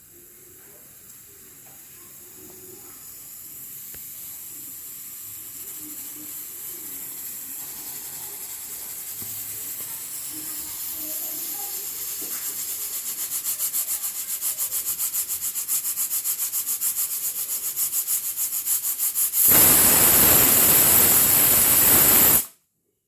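Hawkins pressure cooker coming up to its whistle: a hiss of escaping steam swells steadily and turns into a rapid pulsing, then a loud full blast of steam comes for about three seconds and cuts off suddenly.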